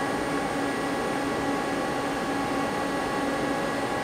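Steady running hum of an idle, powered-up Mazak CNC lathe: several steady tones over an even hiss, unchanging throughout.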